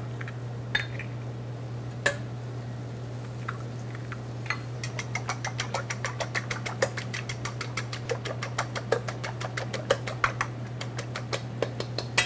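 Eggs being beaten by hand in a stainless steel bowl: a fast, even run of sharp ticks as the utensil strikes the metal, about five or six a second, starting a few seconds in. Before it there are two single taps on the bowl, and a steady low hum runs underneath.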